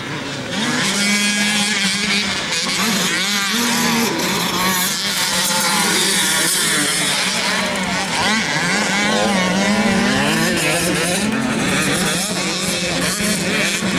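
Several motocross dirt bikes' engines racing, their pitch rising and falling over and over as the riders open and close the throttle.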